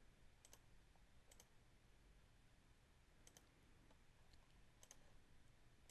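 Faint computer mouse clicks over near-silent room tone: four clicks, each a quick double tick of press and release, spread across the few seconds.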